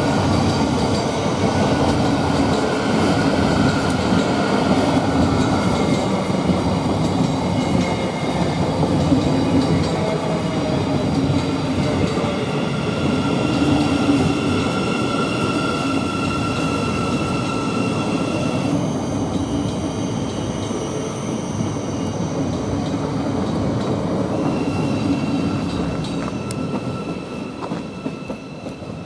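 Thameslink Class 700 electric multiple unit pulling into the platform. Its wheels rumble on the rails under steady high whining tones, and the sound dies away near the end as the train slows to a stop.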